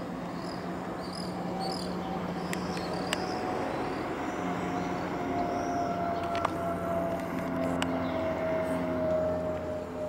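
Boeing 767-400ER airliner with General Electric CF6 turbofans passing overhead on approach: a steady jet rumble that grows louder, with a thin engine whine sliding slowly down in pitch through the second half as the aircraft passes.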